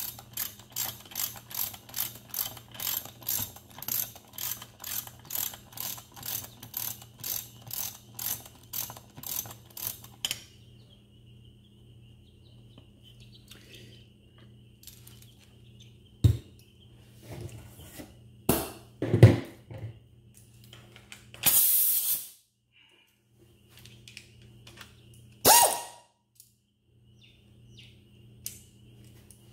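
Ratchet wrench clicking in a steady rhythm, about two to three clicks a second, as bolts are run into the aluminium transmission case; it stops about ten seconds in. After that come scattered knocks and clatter from tools and bolts, with a short hiss a little past the middle.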